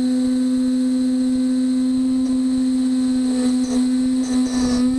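Beaver HDZero CNC router's spindle running at a steady high whine while its end mill cuts aluminium tool plate. A rougher, scratchy cutting noise joins for about a second and a half near the end, and the whine dips slightly in pitch as it does.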